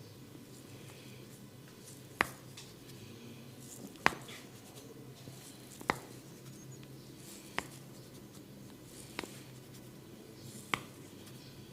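Hair cracking during a head massage: six sharp snaps, evenly spaced every second and a half to two seconds, as tufts of hair are tugged.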